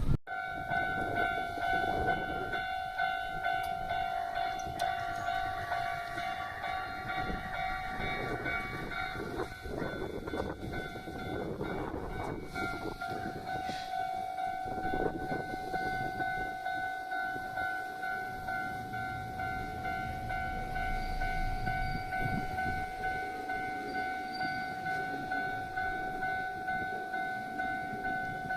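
Japanese level-crossing warning bell ringing steadily as a Hankyu Takarazuka Line train rumbles past on the rails.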